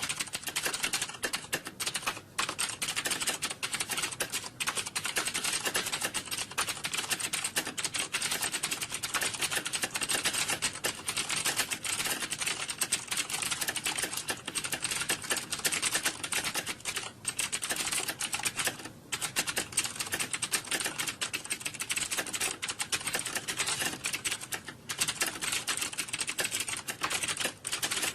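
Fast, dense clicking of several computer keyboards being typed on at once, as in an exam hall during a typing test, with only momentary gaps now and then.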